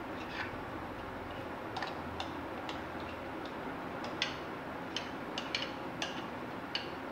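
A metal spoon clicking and scraping against the rim of a mixing bowl as cake batter is scraped out into a cake mould: about a dozen light, irregular clicks over a steady hiss.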